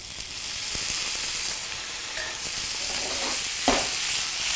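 Parboiled potato cubes hitting hot olive oil in a frying pan: a loud sizzle that starts suddenly and then runs on steadily, with one short knock a little before the end.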